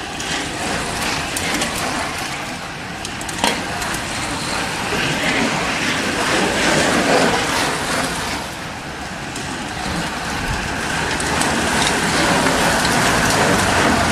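A pack of road-racing cyclists riding past: a steady rushing of tyres on the road with scattered clicks, swelling and easing as groups go by, and one sharp click about three and a half seconds in. Near the end, the engine of a car following the race comes in.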